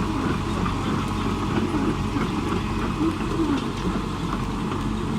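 Liebherr R914 HDSL crawler excavator's diesel engine running steadily.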